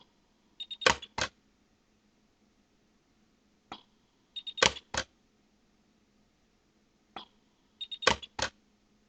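Orion pulse-arc welder firing on a dental clasp joint, re-welding to smooth added filler wire: three times, a few short high beeps followed by two sharp cracks of the weld pulses, with a fainter single click between each set. A faint steady hum runs underneath.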